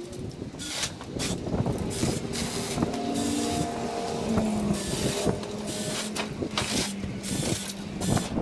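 Cordless mini chainsaw running and cutting through cherry branches, in a string of short cuts that come and go every second or so.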